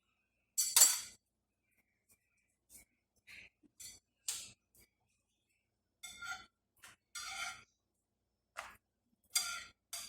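Kitchen utensils clinking against cookware: a few sharp clinks, the loudest about a second in, then short scraping strokes in the second half.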